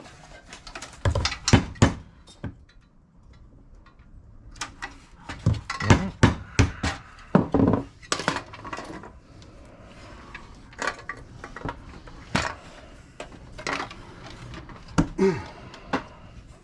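Irregular metallic clanks and clinks of scrap metal parts being knocked and worked apart with hand tools, with a short lull about three seconds in.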